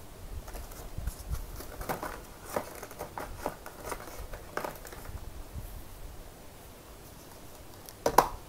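Plastic toiletry bottles and a plug adapter being handled in a plastic basket: scattered light knocks and clicks, with a louder knock near the end.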